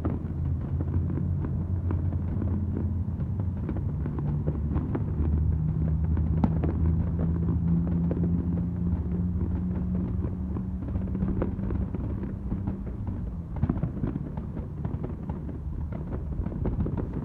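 Distant aerial fireworks going off, a run of small pops and crackles with a sharper bang about six and a half seconds in, over a steady low hum.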